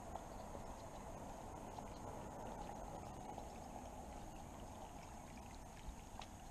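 Faint steady rushing noise with a few soft, light ticks scattered through it.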